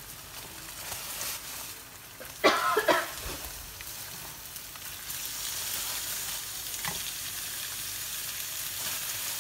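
Raw beef shank cubes frying in a hot wok of spice paste, a steady sizzle, with a sudden loud burst of spitting and thuds about two and a half seconds in as another handful drops into the pan. The sizzle grows louder from about halfway.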